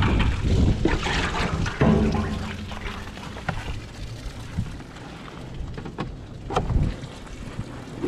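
Gusty wind buffeting the microphone, loudest in the first two seconds, while a black plastic milk crate is handled and set down on a table with a few sharp knocks.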